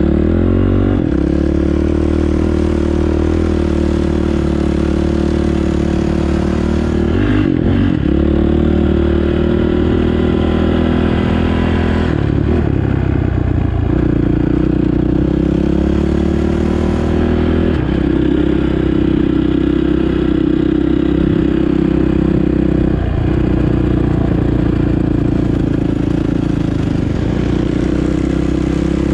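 Dirt bike engine running under load as the bike is ridden across sand, heard close up from the bike itself. The engine note holds steady, with its pitch dropping and climbing back several times as the throttle changes.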